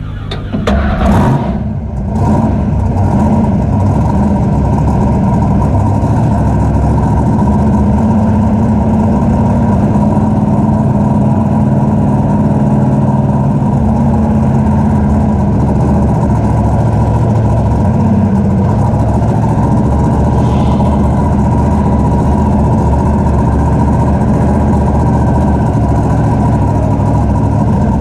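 Raminator monster truck's engine heard from inside the cab, revving up in the first couple of seconds and then running steadily and loudly as the truck drives.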